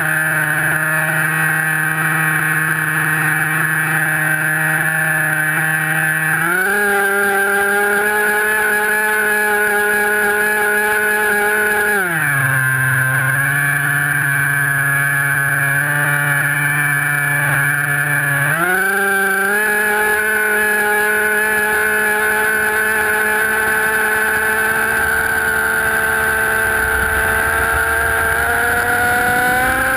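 Motors and propellers of a remote-control aircraft running on the ground: a steady hum with overtones that steps up in pitch about six seconds in, drops back about twelve seconds in, steps up again a few seconds later and climbs slowly near the end as the throttle is opened before take-off.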